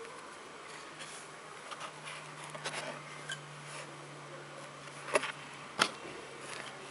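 Stiff board-book pages being handled and turned: soft rustling, then two sharp taps about five and six seconds in as the pages flip over and land. A faint steady low hum sits underneath.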